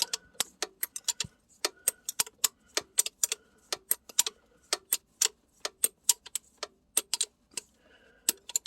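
Ratchet wrench clicking in quick runs of sharp ticks, several a second, as it is swung back and forth to work a fitting loose on a carburetor.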